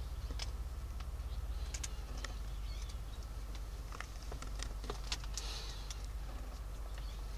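Kittens scuffling in a cardboard box lined with a blanket: scattered light clicks and scratches of small claws on cardboard and cloth, over a steady low hum.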